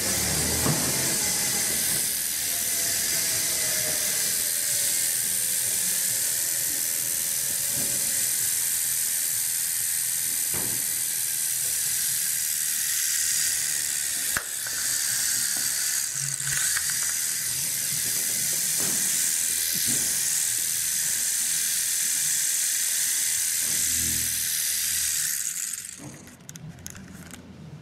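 Small electric motor and rotor of a 5-inch infrared remote-control mini UFO toy running in flight with a steady high-pitched whir, with a few sharp knocks along the way. It cuts out near the end.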